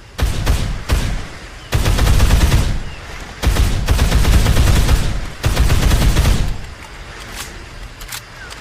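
AKS-74U carbine firing 5.45×39mm: a few single shots, then three long bursts of fully automatic fire, the last ending about six and a half seconds in. A few fainter sharp reports follow near the end.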